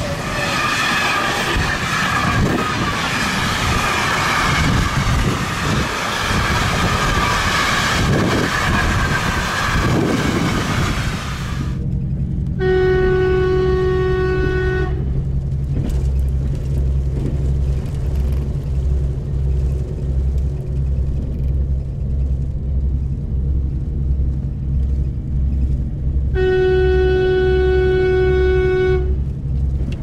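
Train horns. First a train rumbles past with its horn sounding over loud running noise. After a cut, a steady low throbbing hum runs under two single-note horn blasts of about two and a half seconds each, about twelve seconds apart.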